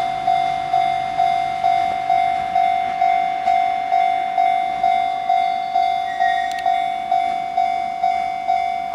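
Japanese railway level-crossing warning bell ringing, a single-pitched electronic chime repeating about twice a second, as the crossing is closed for a passing track maintenance vehicle.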